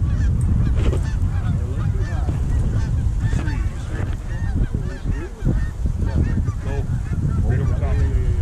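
A flock of geese honking overhead, many short calls overlapping continuously, with a heavy wind rumble on the microphone.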